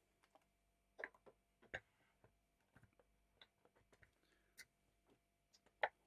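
Faint, sparse clicks and taps of a small plastic folding pocket digital scale being handled, set down on the desk and switched on, about four in all. The last click, just before the end, is the loudest.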